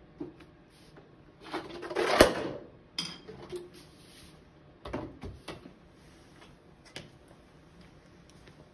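A weight sliding down inside a plastic sewer pipe, growing louder, then slamming onto an aluminium soda can and crushing it with one sharp bang about two seconds in. A few lighter knocks follow as the pipe and weight are lifted off the crushed can.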